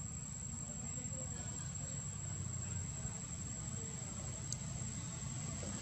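Steady high-pitched drone of insects, a single unbroken tone, over a low background rumble, with one short click about four and a half seconds in.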